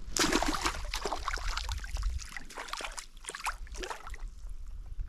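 A largemouth bass dropped back into shallow lake water: one loud splash about a quarter second in, then several smaller irregular splashes and sloshing over the next few seconds as it kicks away.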